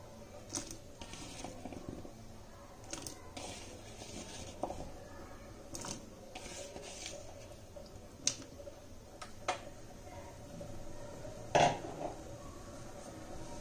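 Potato cubes going into a pot of boiling salted water, with scattered clinks and knocks of a utensil against the pot and soft hiss between them. One louder clatter comes near the end.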